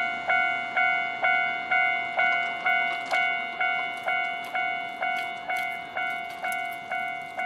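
Japanese railway level crossing's electronic alarm bell ringing, the familiar 'kan-kan', struck about twice a second with each ringing tone dying away before the next.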